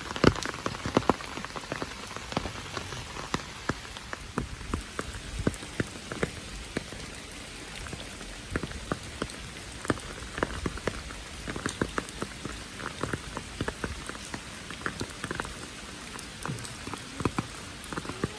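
Rain falling steadily: an even hiss with many separate drops tapping irregularly and close by.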